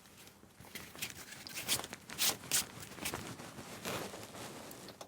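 Handling noise of parts being worked under a car: short scrapes, rustles and light clicks, with two louder scraping strokes about two seconds in.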